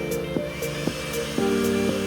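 Background music with a steady beat of about two strokes a second over sustained chords that change every second or so.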